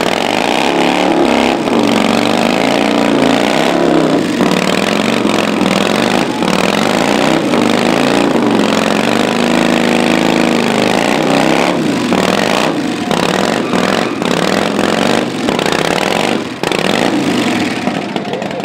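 Custom V-twin chopper engine running loud, revved up and down over and over in repeated swells.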